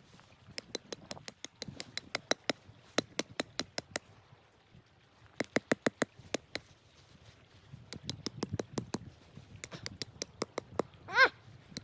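Many sharp, irregular clicks and pops coming in quick clusters with short gaps between them, and one brief squeak that rises and falls in pitch near the end.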